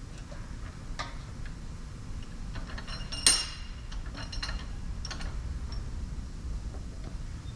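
Scattered metal-on-metal clinks and ticks as a reusable hydraulic hose fitting is worked and turned at a steel bench vise, one sharp ringing clink about three seconds in, over a low steady hum.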